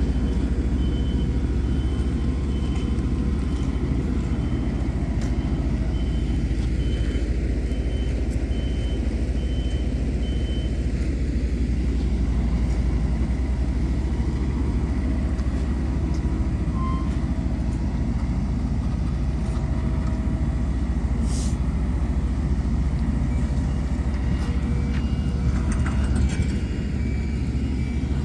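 Asphalt paver and asphalt truck diesel engines running with a steady low drone. A high, evenly repeated beep like a reversing alarm sounds for a few seconds about a second in and again near the end.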